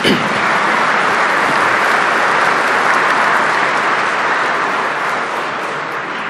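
A large seated audience applauding steadily. It starts suddenly and eases off a little near the end.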